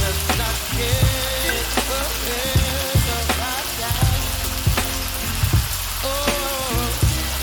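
Sausage and gravy sizzling in a pan as it is stirred, a steady hiss broken by sharp knocks every second or so. Background music plays faintly underneath.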